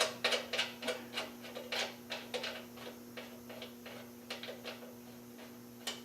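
A run of light mechanical clicks, about three a second, fading away over four or five seconds, with one more click near the end, over a steady electrical hum.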